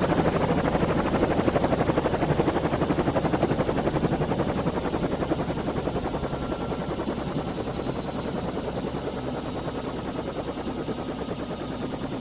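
A steady mechanical drone with a rapid, even chop, slowly fading.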